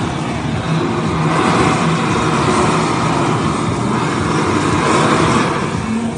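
Handheld butane kitchen blowtorch burning with a steady jet-flame hiss as it flames food and lights candles.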